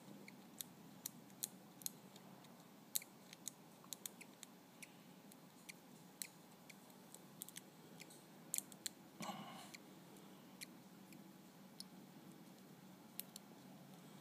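Faint, sharp, irregular clicks of metal tweezer tips picking at a lovebird's eggshell during an assisted hatch, against near silence.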